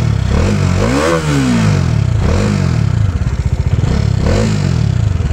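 Motorcycle engine being revved, the pitch climbing and falling back with each throttle blip, the biggest rev about a second in and more near the middle and end.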